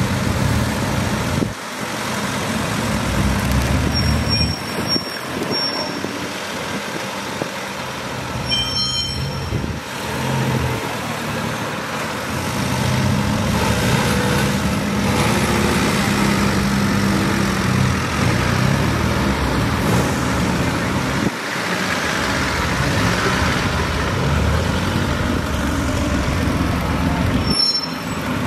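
Classic car engines running at low speed as cars roll in one after another, the low engine note rising and fading. A few brief high squeaks come a few seconds in and again near the end.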